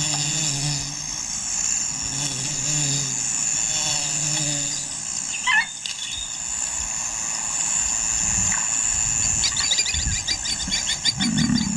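Outdoor wildlife ambience: a steady high insect drone throughout, a short bird call about halfway through, and fast repeated chirps in the last couple of seconds.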